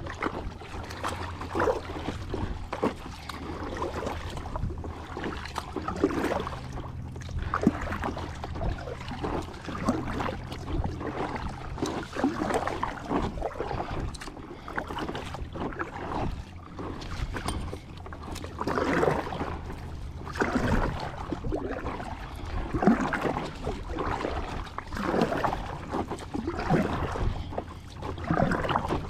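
Kayak paddle strokes dipping and splashing in the water, one every second or two, over a steady low rumble.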